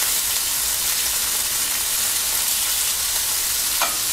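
Marinated steak strips searing in a hot cast-iron skillet as more pieces are laid in with metal tongs: a steady sizzling hiss, with a short tap near the end. The sizzle starting right away is the sign that the pan is hot enough to sear.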